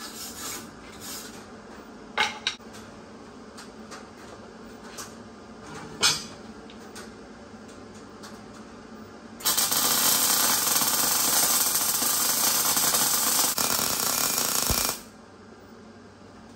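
Arc welding on a steel link tab at the axle housing: a steady crackling hiss lasting about five seconds in the second half, with a brief dip near its end. Before it come a few sharp clicks and knocks as the part is handled and positioned.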